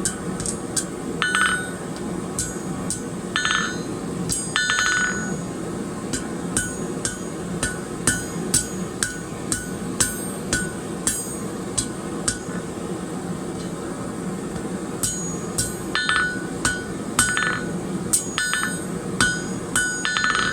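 Hand hammer striking hot steel on an anvil, forging a penny scroll on the end of a tapered bar: dozens of ringing blows in irregular runs of about two a second, with a pause of a few seconds partway through. The anvil's ring is partly damped by chain laid on it, and a steady low hum runs underneath.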